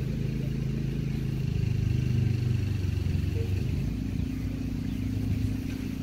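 An engine running steadily, its pitch shifting a couple of times.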